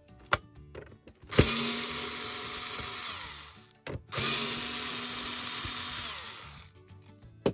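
Cordless drill-driver run twice, about two seconds each, backing out two screws from the plastic base of an ultrasonic glasses cleaner; each run fades out as the motor winds down. A short click comes near the end.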